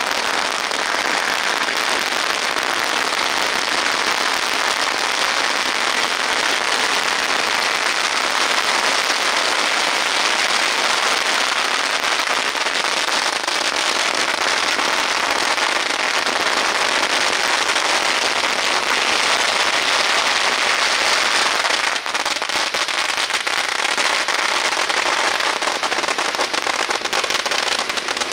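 Masses of firecrackers going off in one continuous, rapid crackle of bangs, easing slightly about two-thirds of the way through.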